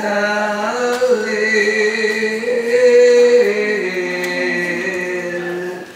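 A solo voice singing a slow, unaccompanied Javanese chant-like song (tembang), holding long notes that step slowly downward in pitch. The singing breaks off just before the end.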